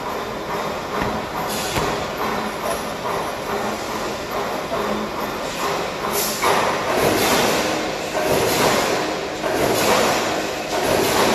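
Loud continuous mechanical noise of workshop machinery, with louder uneven surges from about halfway through.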